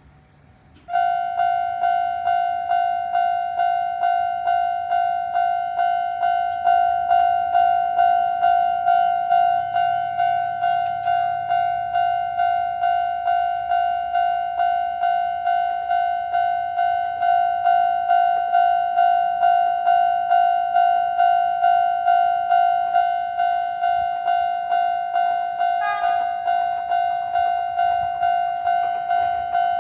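Japanese level-crossing alarm, the older standard electronic bell tone, starting about a second in and dinging steadily at a little over two strikes a second: the warning that a train is approaching. A brief sharp click near the end.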